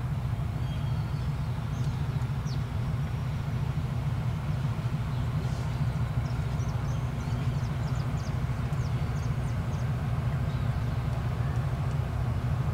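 Steady low drone of the diesel engines of a towboat pushing a convoy of river barges, with faint bird chirps over it.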